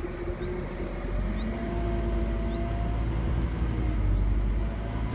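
Scania N230UD double-decker's diesel engine and driveline running under way, heard from the open top deck: a steady low rumble with a faint whine that rises and then settles, the whole getting a little louder about a second in.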